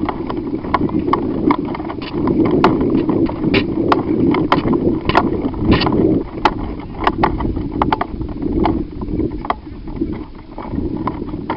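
Irregular sharp knocks and clicks, roughly one or two a second, over a steady rumble of wind and handling noise on the microphone, the sound of a camera carried while moving.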